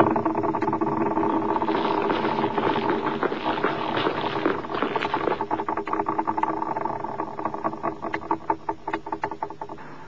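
A mechanical rattling: a fast run of clicks over a steady hum. The clicks slow and thin out after about six seconds, and the whole dies down near the end.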